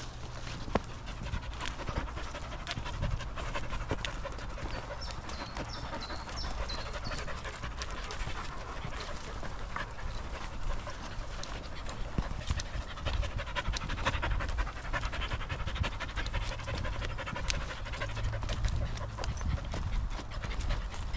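A dog panting close by, with footsteps and small crackles on a woodland dirt path.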